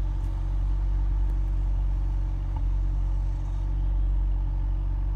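Ford Focus RS MK3's 2.3-litre turbocharged four-cylinder engine idling steadily, heard at the twin exhaust tailpipes.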